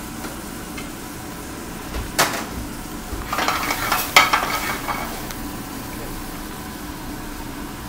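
Cherries jubilee sizzling in a sauté pan on a gas range as it is flambéed: a sharp knock of the pan about two seconds in, then a burst of sizzling and clattering for about two seconds as the pan flares up.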